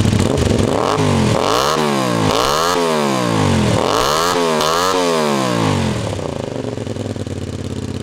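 Honda VTR250's V-twin engine running through a cheap generic stainless slip-on silencer with an inner silencer baffle fitted. It idles, is revved in about five quick throttle blips, then settles back to idle. It is still very loud, a 爆音 ("explosive sound"), even with the baffle in.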